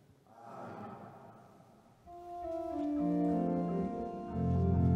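Organ playing sustained chords that begin about two seconds in, with a deep bass note joining near the end.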